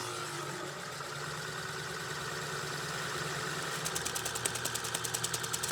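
A steady mechanical running sound with a hum, starting and stopping with a click. A fast, even ticking of about seven a second joins in for the last two seconds.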